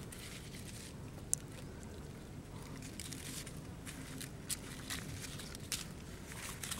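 Hands handling leaves, a knife and raw skinned bat carcasses: soft rustling with a few sharp clicks, over a steady outdoor background.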